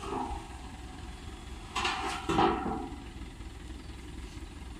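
Low steady hum of an idling combine harvester engine, with a loud metallic clatter of steel loading ramps being shifted about two seconds in.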